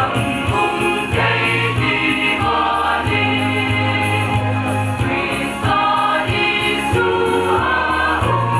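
A mixed choir of young men and women singing a Hmar-language hymn medley through a PA system, with the sung notes changing every second or so over a steady low accompaniment.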